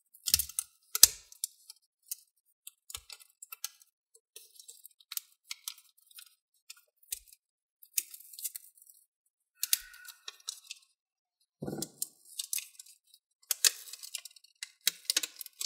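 Thin black plastic cover being pried up and peeled off a laptop's metal keyboard plate: scattered clicks, crackles and rustles of the flexing film and the pry tool, the sharpest click about a second in.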